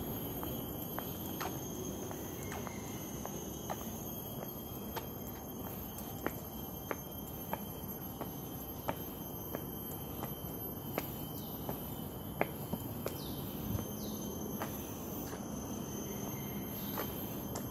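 Footsteps of someone walking at a steady pace, about one and a half steps a second, over a steady high-pitched insect drone, with a few short chirps about two-thirds of the way in.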